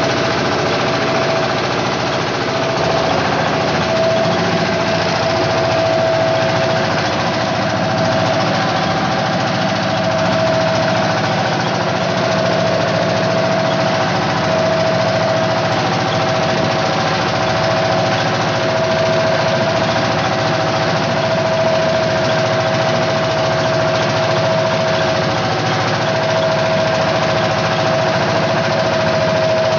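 Inboard engine of a wooden fishing boat running steadily under way, loud and even, with a steady whine that comes and goes over it, and the rush of wind and choppy water around the hull.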